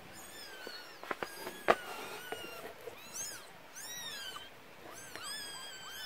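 Newborn kittens, one day old, mewing: many short, high-pitched cries that rise and fall, several at once, as they greet their returning mother. A few sharp clicks sound a little over a second in, the loudest just under two seconds in.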